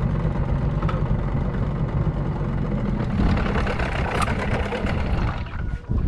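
Small fishing boat's engine running under way, mixed with a steady rush of wind and water; it eases off near the end as the boat arrives.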